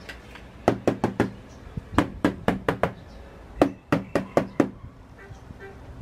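Knuckles rapping on the front of a Sony flat-screen LED TV: three quick runs of knocks, about four, then five, then six in a row.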